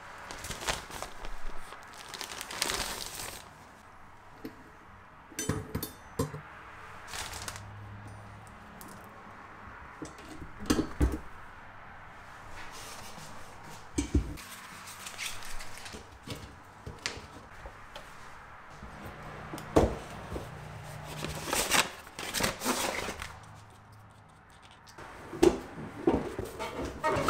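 Hands handling bicycle parts on a workbench: scattered metal clicks and clinks while the fat-bike wheel's brake disc is swapped, then rubber rubbing and scraping as an inner tube is fitted into the fat tire. A quicker run of louder knocks comes near the end.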